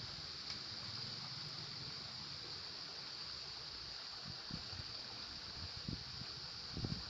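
Shallow river flowing over stones: a steady, even rush of water, with a few soft low thumps near the end.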